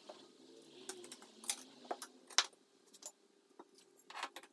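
Scattered light clicks and knocks, irregular and a few a second, from metal clamps being handled and adjusted on a workbench, over a faint steady hum.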